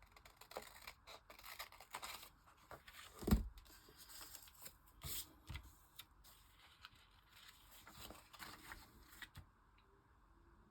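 Paper and craft tools being handled on a table: scattered soft rustles and small clicks, with a dull knock about three seconds in.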